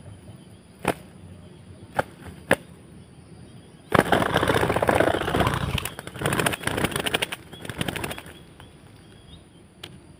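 Two spotted doves fighting: three sharp claps in the first few seconds, then a loud flurry of rapidly beating wings lasting about four seconds, with one more clap near the end.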